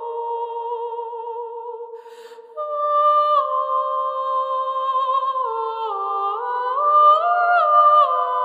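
Background music: a slow melody of long held notes in two parallel parts, moving in steps, with a brief break about two seconds in.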